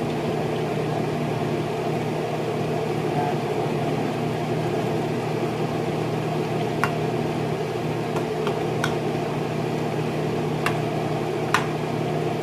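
Metal spoon stirring simmering igado in a wok, knocking against the pan in a few sharp clicks, mostly in the second half. Underneath runs a steady whirring hum.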